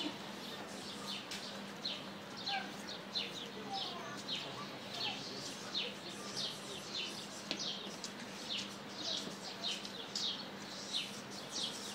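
Small birds chirping continuously: a quick run of short, high, falling chirps, several a second, over a faint steady hum.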